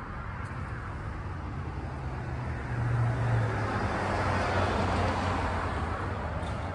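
Road traffic noise, with a car passing that swells louder a few seconds in and then eases off.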